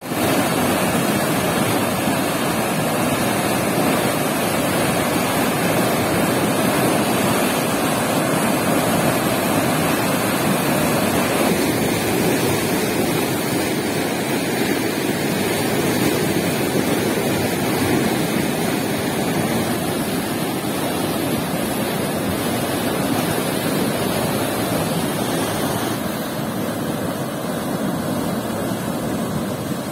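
Water rushing and churning as white water out of a concrete sluice outlet into a channel, a loud steady rush that drops a little in level near the end.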